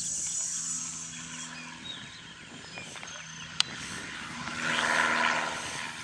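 Cessna 152's four-cylinder engine and propeller running at full takeoff power, a steady drone that swells to its loudest about five seconds in as the plane climbs past, then stops suddenly at the end.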